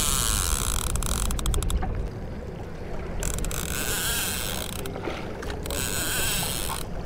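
Saltwater fishing reel clicking and whirring in spells as line is worked against a hooked fish. Wind rumbles on the microphone for the first two seconds.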